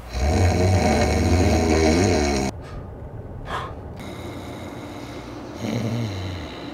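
A man snoring loudly, a rough low rasp that stops suddenly about two and a half seconds in, followed by a quieter steady background noise.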